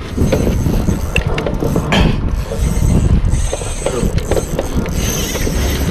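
Spinning fishing reels and rods being handled, a busy clicking and rattling of reel mechanisms.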